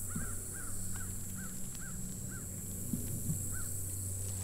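A bird calling in a quick series of short, arched notes, about two or three a second, that thin out after about two and a half seconds, with one more call near the end, over a low steady rumble.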